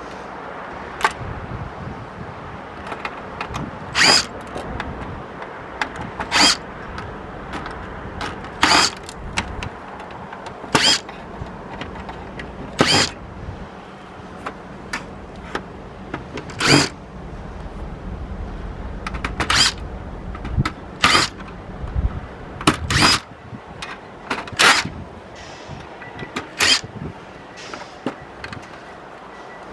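An electric screwdriver runs in short whirs, about a dozen of them roughly two seconds apart, as screws are backed out of a DVD recorder's casing. Small metal ticks and clicks fall between the whirs.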